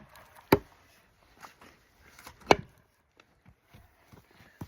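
Sharp knocks of hard gear being handled: two loud clacks, about half a second in and about two and a half seconds in, with fainter taps between.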